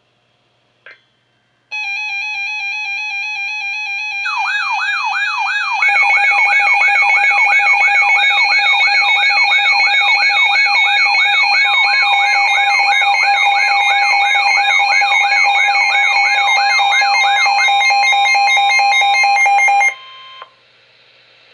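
Emergency weather alert tones, several electronic alarms sounding together. A steady pulsing beep begins, then a siren-like sweep rising over and over about two and a half times a second, with more beeping tones and then a steady single tone added on top. All of them cut off abruptly near the end.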